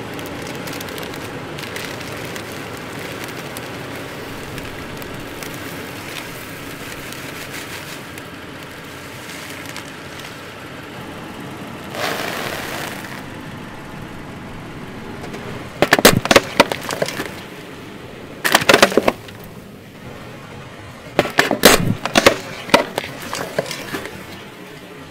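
A car tyre rolls over a heap of crisps and crushes them in several loud bursts of crackling crunches, over quiet background music. Before that the crisps rustle as they are shaken out of their packet.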